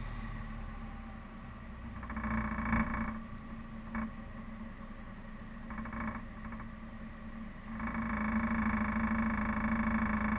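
Suzuki Vitara 4x4 engine running steadily off-road, swelling briefly a few times and getting louder near the end.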